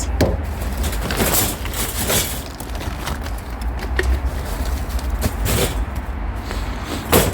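Rustling and handling noise from rummaging through discarded items, with irregular scrapes and a few sharp knocks over a steady low rumble.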